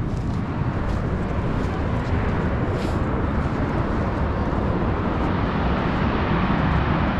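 The active crater of Mount Bromo volcano rumbling: a steady, deep roar that grows slightly louder toward the end.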